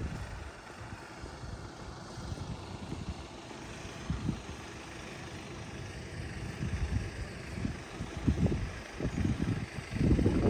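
Wind buffeting the microphone in uneven low gusts, strongest near the end, over a faint steady outdoor hiss.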